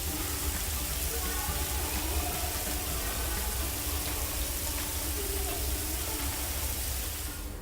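Artificial indoor rain pouring steadily from the ceiling of a Rain Room installation, an even dense hiss of falling water with a low rumble beneath. The hiss cuts off suddenly near the end.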